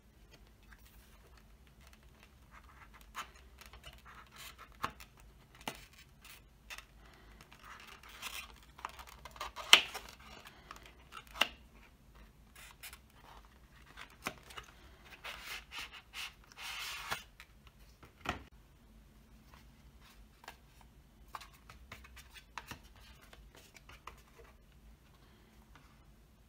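Paper sleeve and cardboard DVD case being handled: paper rustling and sliding against card, with scattered taps and clicks. The sharpest click comes about ten seconds in, and a longer rustle comes about two-thirds of the way through.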